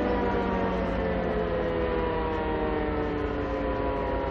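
A pitched machine whine with many overtones, slowly falling in pitch and growing fainter, as if winding down.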